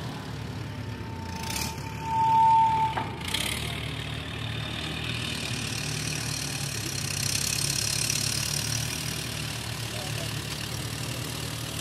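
Small antique tractor engine running at low speed as the tractor creeps up onto a tilting balance-beam platform. A steady high squeal rises to its loudest about two seconds in and stops about a second later, with a couple of sharp knocks nearby.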